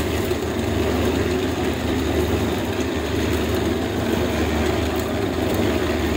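An engine running steadily at an even speed, a constant low hum that does not change.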